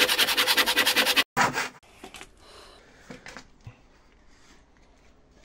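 Hand saw cutting through a pine block in quick, even rasping strokes that stop abruptly a little over a second in, followed by faint handling noises and a few light knocks.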